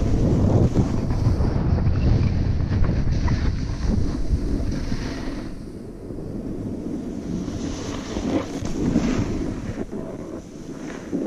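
Wind rushing over a GoPro's microphone during a downhill run in snow, with the hiss of snow sliding under the rider. It is strong at first, eases off about halfway, then builds again.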